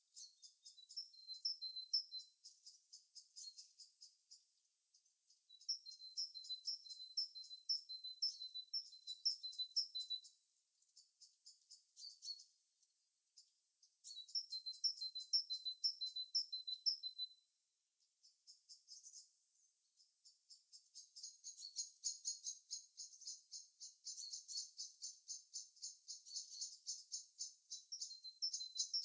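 Small birds calling in series of short, high, evenly spaced chirps, about two a second. The chirps come in bouts a few seconds long with pauses between, then a denser, unbroken run of rapid chirps in the last third.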